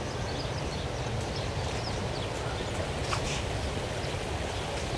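Outdoor background: a steady low rumble with scattered faint bird chirps.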